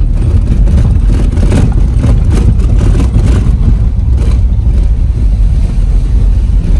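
Car driving over a wet gravel dirt road in rain, heard from inside the cabin: a loud, steady rumble of tyres and suspension with irregular knocks and rain on the windscreen.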